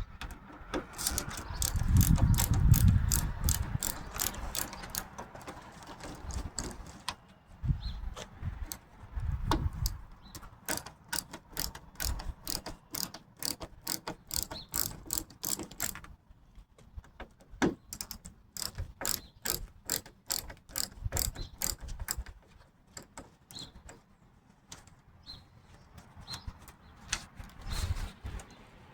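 Ratcheting screwdriver clicking in runs of quick, even clicks as door-hardware screws are turned, with a few dull knocks against the door.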